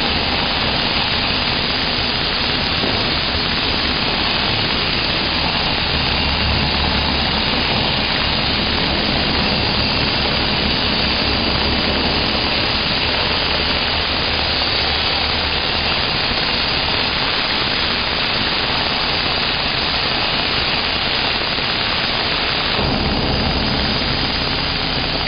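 CNC plasma cutter cutting: a loud, steady hiss of the plasma arc and its compressed air, with the sound shifting about 23 seconds in, less hiss and more low rumble.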